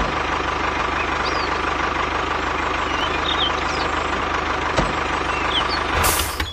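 Small engine running steadily at idle with a fast, even beat, and a few faint bird chirps over it.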